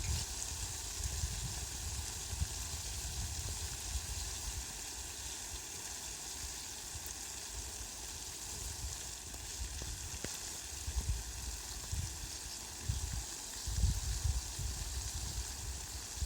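Heavy rain falling on leafy plants, a steady even hiss. Bursts of low rumble come and go, most of them in the last third.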